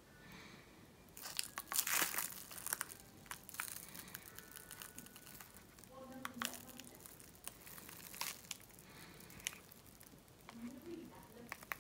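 Crinkling of a clear plastic bag wrapped around a handheld remote control as it is held and its buttons are pressed. The crackling is loudest about one to three seconds in, then comes in scattered bits.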